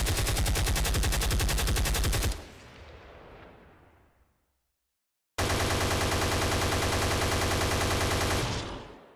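Automatic gunfire sound effect: a sustained rapid burst that stops about two seconds in and rings out in a fading echo. After a short silence a second rapid burst of about three seconds starts just past the middle and fades out near the end.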